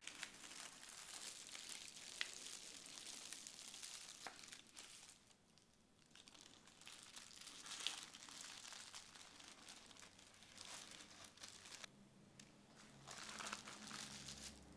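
Faint rustling and crinkling of plastic packaging, on and off, as a damaged painting is unwrapped and slid out of its plastic mailing envelope and wrapping.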